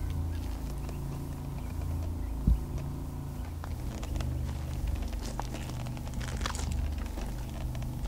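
Low rumble of wind on the camera microphone, with a single sharp thump about two and a half seconds in and faint rustling toward the end.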